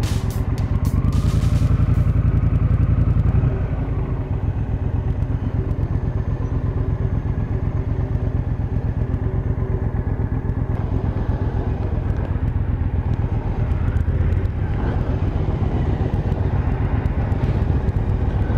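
Triumph Thunderbird motorcycle engine heard from the rider's seat, running on the throttle for the first few seconds, then easing off about three and a half seconds in and running steadily at low revs while the bike rolls slowly.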